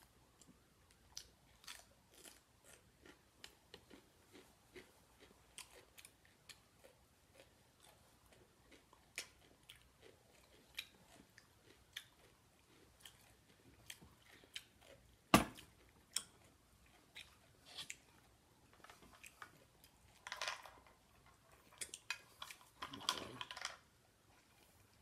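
A person chewing a taco up close, with soft wet chewing and lip smacks in many small clicks. About fifteen seconds in comes one sharp click, the loudest sound. Near the end she gulps a drink from a bottle.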